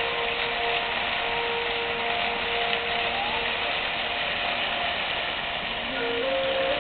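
Water jets of a musical fountain hissing and splashing steadily into the basin, with faint music of long held notes playing over them. The music picks up with new notes a little before the end.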